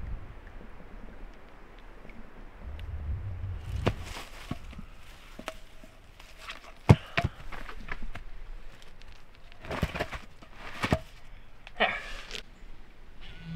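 Camping gear being handled: short rustling bursts and scattered sharp clicks and knocks over a low rumble, the sharpest click about seven seconds in.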